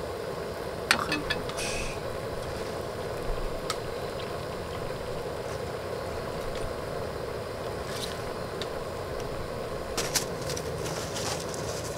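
Steady rumble of a camping gas stove burner under a pot of boiling soup, with a few sharp clinks of a ladle against the pot as it is stirred and greens are added.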